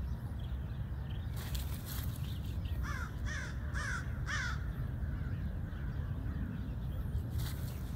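A crow cawing four times in quick succession, about three seconds in, over a steady low rumble.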